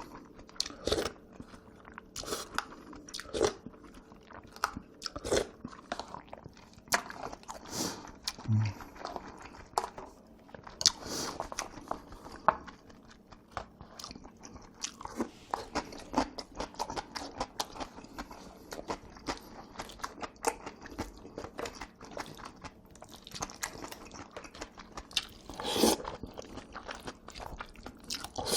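Close-miked eating of jjajangmyeon and seafood jjamppong: irregular chewing and biting, with crunchy and wet mouth noises and a louder bite near the end.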